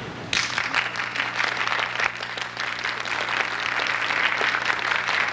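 Audience applause in a school auditorium, starting about a third of a second in and going on steadily, with a faint low hum underneath.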